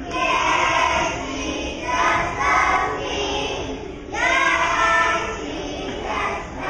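A group of young preschool children singing a song together, in sung phrases with short breaks between them.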